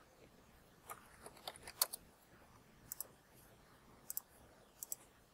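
Faint computer mouse clicks. A quick run of clicks comes about a second in, then three separate sharp clicks about a second apart, each made of the button's press and release.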